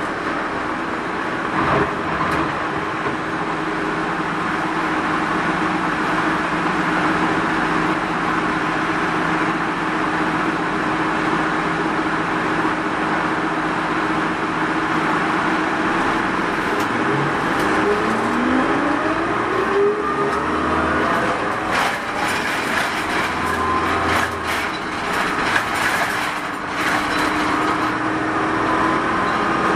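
Mitsubishi Fuso Rosa minibus running, heard from inside the cabin: a steady diesel engine hum with road noise. The engine pitch rises about two-thirds of the way through as the bus accelerates, with some light rattles after.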